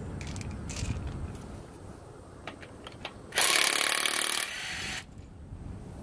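A tool working on a car wheel's lug nuts makes a loud, harsh noise lasting about a second, near the middle. A few faint clicks come before it.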